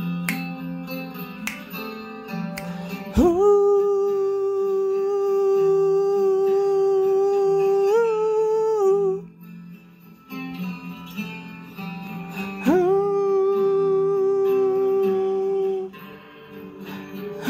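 Acoustic guitar playing, with a voice holding two long wordless notes over it. The first note lasts about six seconds and the second about three, and each slides up into pitch.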